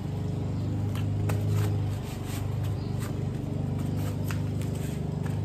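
A steady low machine hum, with a few light taps and rustles as a sheet of vinyl wrap is pressed down onto a foam block.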